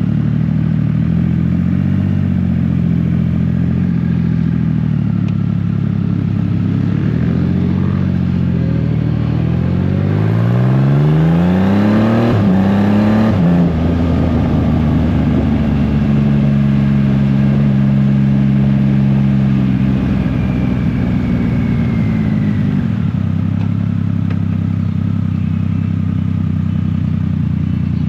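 Motorcycle engine running under way on the road, its pitch wandering gently, then climbing steeply as it accelerates about nine to thirteen seconds in, before settling to a steady cruise.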